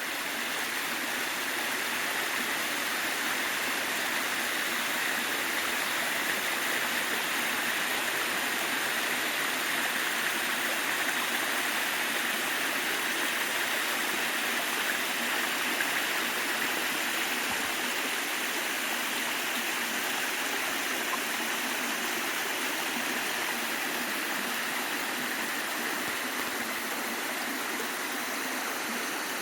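Waterfall rushing: steady, even water noise from falling and splashing water, with no breaks or changes.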